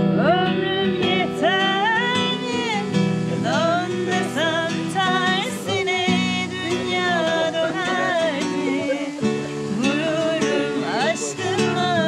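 A woman singing while strumming a cutaway classical guitar.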